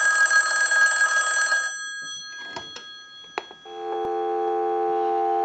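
Western Electric 554 rotary wall telephone's ringer bells ringing on a ring cycle sent from a line analyzer, cutting off about a second and a half in and ringing out. A few clicks as the handset is lifted off the hook, then a steady dial tone comes on about two thirds of the way through.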